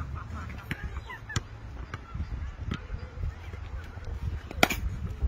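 A cricket bat striking a ball once, a sharp crack about four and a half seconds in, with a fainter knock about a second and a half in, over a steady low rumble.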